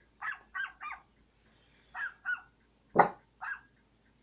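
Small dog barking: about seven short, sharp barks in quick groups, three together at first, then two, then the loudest one about three seconds in, followed by one more.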